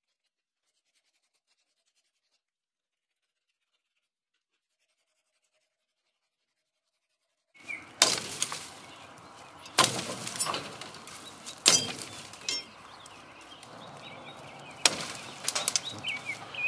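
Silence for the first half, then a steel sword blade chopping into green tree branches: a series of sharp chopping strikes about every two seconds, each one loud and sudden, with birds chirping faintly in the background.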